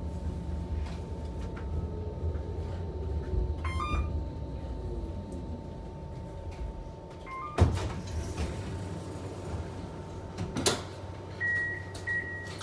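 Inside a tram that is slowing and stopping: a low rumble and a steady whine fall away, then a loud clunk and a second knock of the doors, followed by a high repeating beep of the door signal near the end.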